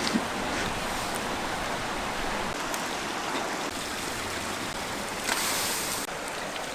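Steady rush of flowing water, with a brighter, louder hiss for about a second near the end.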